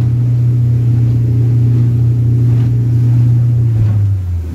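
Motorboat engine running steadily at speed, heard from on board as a loud low drone; its note drops slightly near the end.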